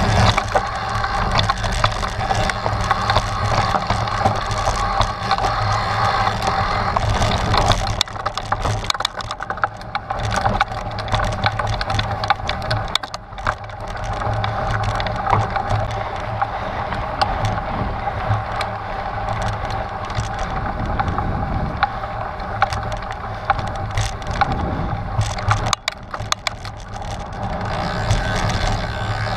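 Trek Stache 9 29+ mountain bike ridden over rocky trail: tyres crunching on gravel and rock, with a dense run of small knocks and rattles from the bike.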